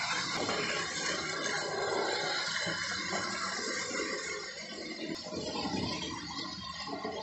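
Hornby OO gauge model locomotive and its coaches running on the layout's track: a steady rushing, rattling noise from the wheels and motor that eases off a little about halfway and picks up again as the train comes round.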